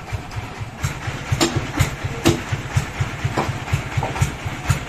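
An engine idling with a steady low chugging beat, with a few sharp knocks over it.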